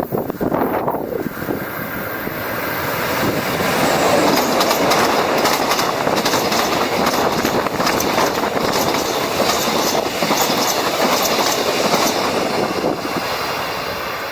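A train passing on the rails: a steady rumble with wheels clattering over the track, swelling over the first few seconds and staying loud until shortly before the end.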